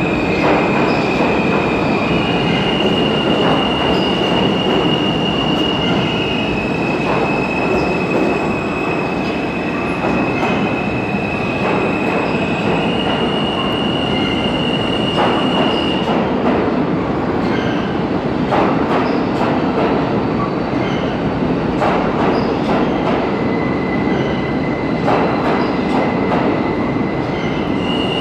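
New York City subway trains running through an underground station: a steady rumbling of wheels on rails with a high-pitched wheel squeal that holds one pitch and then shifts to another several times. In the second half, sharp clacks of wheels passing over rail joints come through the rumble.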